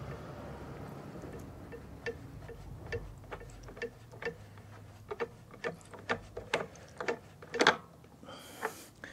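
Light, irregular clicks and ticks as a spin-on oil filter is unscrewed by hand from a push mower's engine above a cut-down plastic bottle used as an oil pan. The ticks are sparse at first and come faster later, about two a second, with one louder click near the end. Faint traffic noise fades out in the first second.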